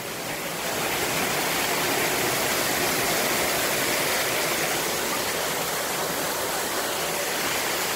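Artificial rock waterfall pouring into a stream: a steady rush of falling and running water.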